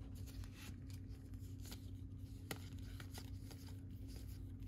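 Baseball trading cards being flipped through by hand, one card slid off the stack after another: faint slides and light ticks of card stock over a low steady hum.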